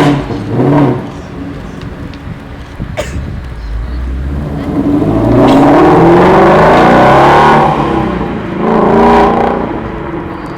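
Car engine revved twice in quick blips, then accelerating hard with its pitch climbing for about three seconds, and revving once more near the end.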